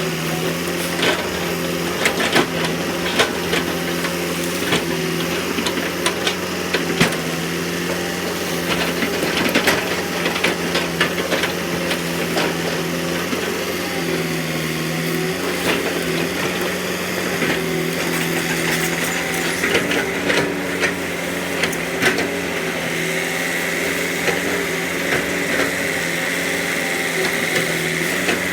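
Excavator engine running steadily, its pitch stepping up and down every few seconds as it works, with scattered knocks and clanks and a thin steady whine in the second half.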